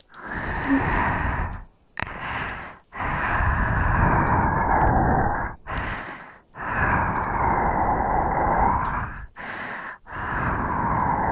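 Heavy breathing close to the microphone: about five long, noisy breaths of one to three seconds each, separated by short pauses.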